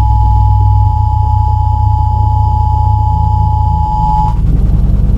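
Deep, loud bass rumble from a Harbottle Audio C24 L2 24-inch subwoofer playing a film soundtrack, its driver moving visibly; the low tone shifts in pitch about a second in and again near four seconds. A steady high tone runs alongside and cuts off about four seconds in.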